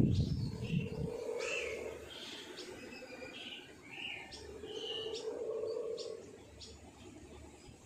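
Small birds chirping with short repeated calls, over a steady low hum that swells twice and fades. A low rumble sounds in the first second.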